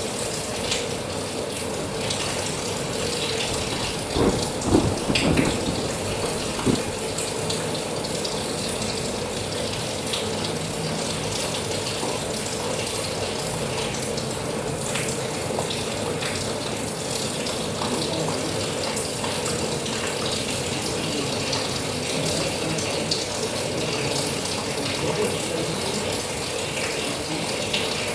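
Steady heavy rain, a dense crackling patter of drops, with a few louder knocks about four to seven seconds in.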